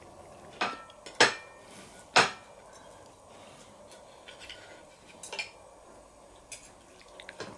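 Knife and fork clinking against a plate while steak is being cut: three sharp clinks in the first couple of seconds, then a few fainter ones near the end.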